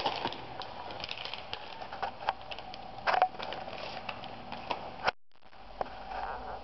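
Handling noise close to the microphone: scattered clicks and short rustles as things are moved about and picked up, over a steady faint hum. The sound drops out abruptly for a moment about five seconds in.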